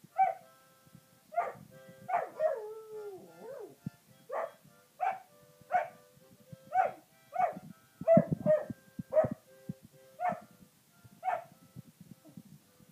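A Sprocker spaniel singing along to music: a string of short yelping barks, roughly one every two-thirds of a second, with one long howl that slides down in pitch about two seconds in. Steady held musical notes sound underneath.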